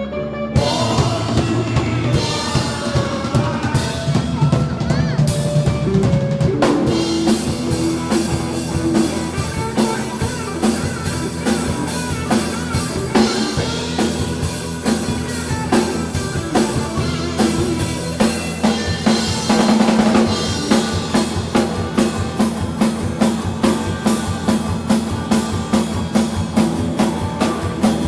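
Rock band playing live, with the drum kit in front: kick and snare driving a beat over sustained bass and guitar tones. The hits fall into a steady, evenly spaced beat in the second half.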